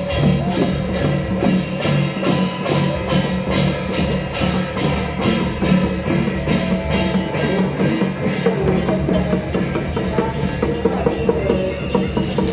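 Music with drums and percussion keeping a fast, steady beat under a sustained melody.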